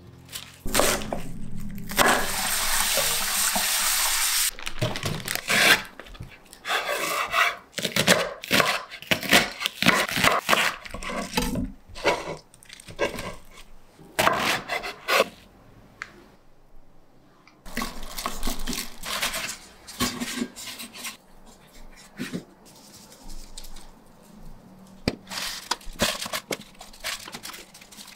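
Kitchen prep sounds: tap water runs into a sink for about two seconds, starting about two seconds in, then comes a string of short knife strokes and taps on a wooden cutting board as enoki mushrooms are cut. Crisp napa cabbage leaves rustle as they are handled, near the end as they are laid into a pot.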